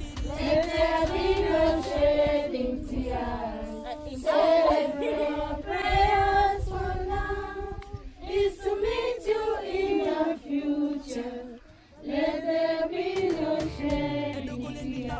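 Voices singing together in chorus, with a short break about three-quarters of the way through.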